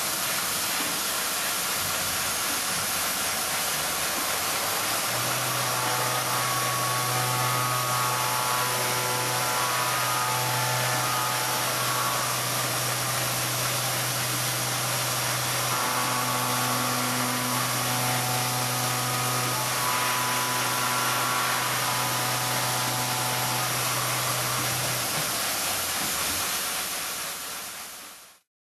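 CNC machining center running near-dry (MQL) machining: a steady hiss of air-oil mist from the lubricant nozzle, with a low hum of the spindle from about five seconds in until near the end, and the whole sound fading out at the close.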